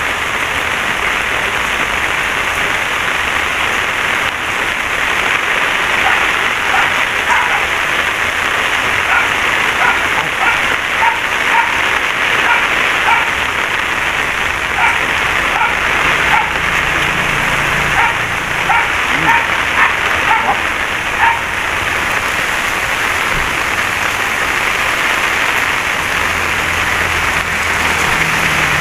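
Steady rain hiss, with a dog barking short repeated barks through the middle stretch.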